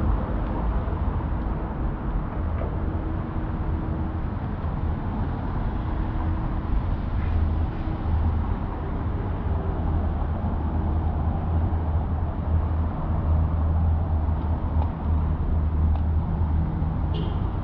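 Street traffic: motor vehicles running along a city street, with a steady low engine hum that grows stronger in the second half, and a brief sharp click near the end.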